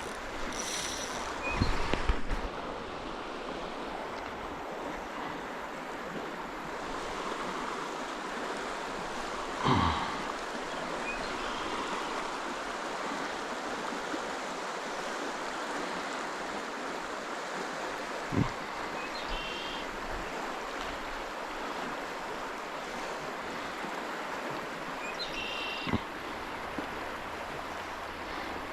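Steady rush of a flowing trout stream, with a few brief knocks scattered through it.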